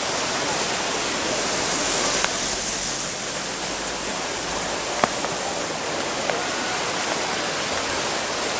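Flash-flood water rushing steadily, with a few sharp ticks partway through.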